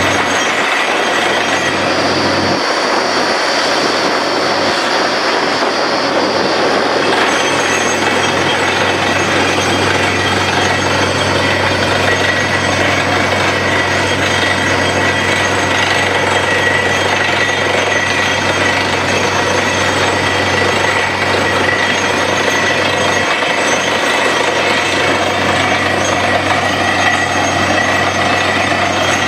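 Truck-mounted borewell drilling rig running as it drills, a loud steady mechanical din with a steady high tone running through it. An extra high hiss joins in from about two to seven seconds in.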